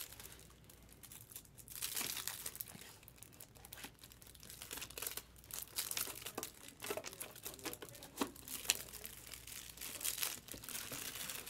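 A stack of Topps Chrome baseball cards flipped through by hand: the glossy chromium cards slide and flick against one another in an irregular run of crisp scraping clicks.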